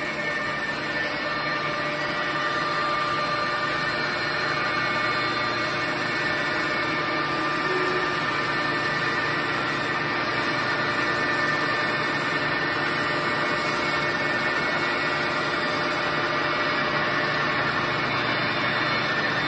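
1980 Wotan horizontal table-type boring mill running with its rotary table turning under power: a steady machine hum with several steady whining tones held at one level throughout.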